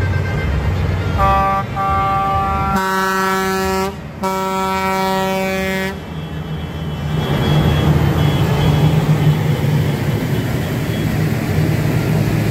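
Vehicle horns sounding in the middle of a slow column of diesel tractors and a combine harvester: a higher horn twice, then a louder, deeper air-horn blast broken once and held for about three seconds in all. Under and after the horns the farm engines rumble steadily, growing louder as more tractors pass.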